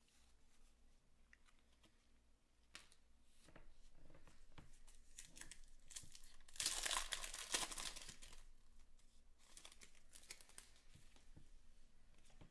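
A baseball card pack's wrapper being torn open by hand and crinkled. It starts as scattered crackles, is loudest in a dense stretch of tearing about halfway through, and ends with lighter crinkles.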